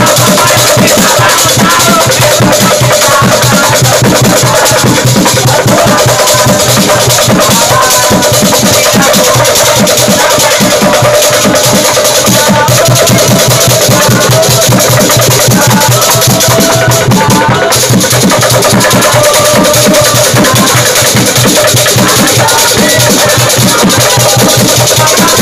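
An obrog sahur troupe's loud street music: hand percussion and drums beaten in a fast, steady beat, with a group of young men singing and chanting along like football supporters.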